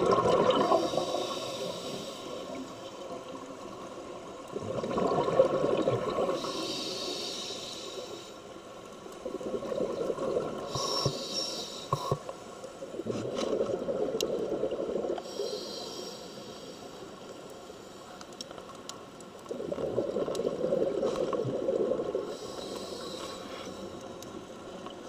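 Scuba diver breathing through a regulator underwater. Each breath has a rushing, bubbling exhale followed by a short hissing inhale, about five breaths in all.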